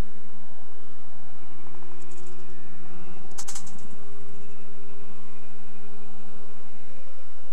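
A steady low mechanical hum, like a motor running, that drops out about seven seconds in, with a short sharp rattle about three and a half seconds in.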